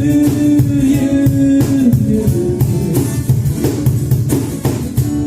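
A live band plays a Brazilian pop song instrumentally: guitar and bass over a steady beat, with one long held note in the first couple of seconds.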